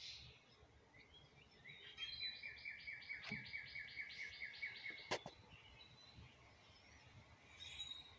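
A songbird singing a quick trill of evenly repeated high notes, about three seconds long and starting about two seconds in. It ends with a single sharp click, the loudest sound, about five seconds in.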